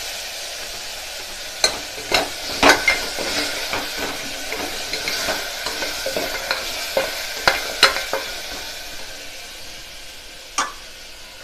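Steel ladle stirring goat trotters with masala in an aluminium pressure cooker, the mixture sizzling in the hot pot, with a handful of sharp knocks of the ladle against the pot. The sizzle eases off near the end.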